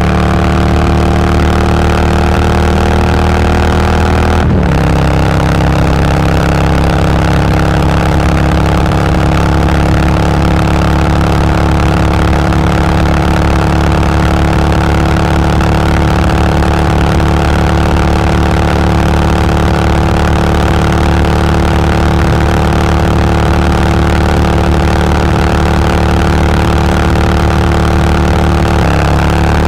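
Harley-Davidson Twin Cam V-twin engine and exhaust heard from the rider's seat at highway speed. There is a quick upshift about four seconds in, the engine then pulls steadily at a constant pitch, and the revs change again near the end.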